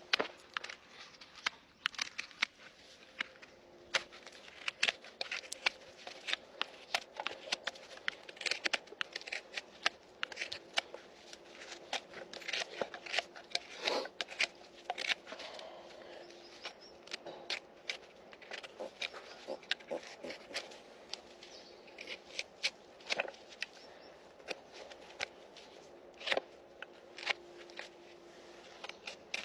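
Farrier's hand tools working a Shire horse's hoof: irregular short clicks, scrapes and crackles at an uneven pace, with a faint steady hum beneath.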